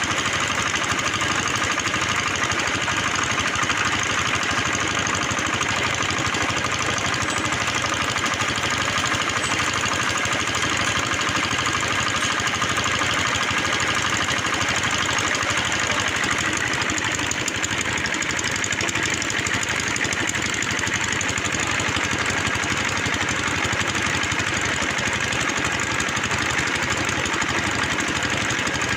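Engine of a bore well drilling machine running steadily.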